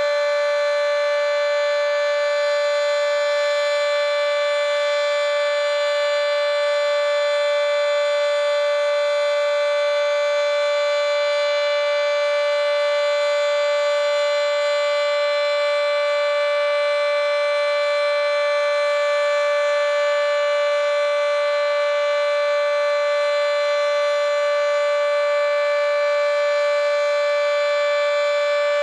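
Federal Signal 2T22 three-phase dual-tone warning siren sounding its steady alert tone, holding one unwavering pitch chord. Its top intake is completely blocked.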